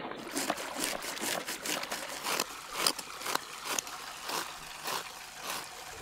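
A large knife scraping the scales off a huge whole fish in quick, rasping strokes, about three a second, with water running and splashing into a basin underneath.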